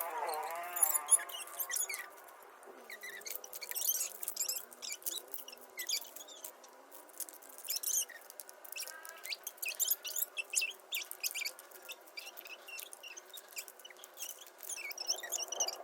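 Small plastic toy-brick pieces clicking and rattling as they are handled, many short sharp ticks. Faint wavering high-pitched squeaks come in near the start and again around the middle.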